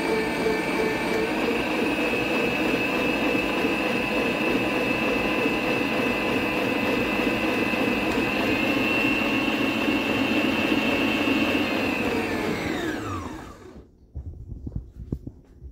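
LILPARTNER tilt-head stand mixer running steadily with its whisk attachment turning in the stainless steel bowl. About thirteen seconds in the motor is switched off and its whine falls in pitch as it spins down, followed by a few light knocks.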